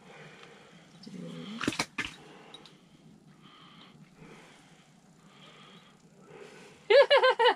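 Wheezy, breathy laughing from a person, then a loud burst of rapid, high-pitched laughter near the end.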